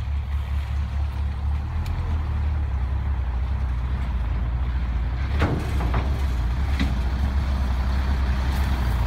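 Steady low rumble of wind on the microphone over a hiss of moving water, with a few short clicks about five and a half to seven seconds in.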